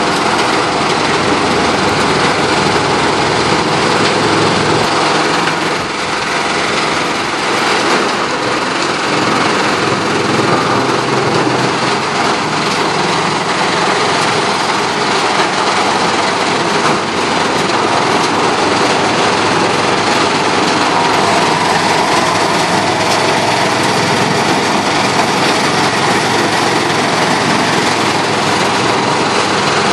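Haybuster IG-11 tub grinder running under load, its 300-hp John Deere six-cylinder diesel driving the hammermill as it grinds material and sends it up the discharge conveyor. A loud, steady, dense machine noise.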